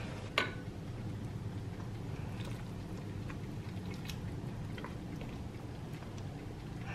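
Ladle scooping through salmon head soup in an enamelled cast-iron pot, broth pouring and dripping back off it, with a few faint ticks over a steady low hum. A sharp click about half a second in is the loudest sound.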